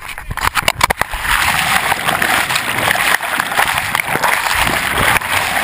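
A person plunging into a muddy pond with a handheld GoPro: a few sharp splashes in the first second, then steady, loud churning water around the camera as it goes under.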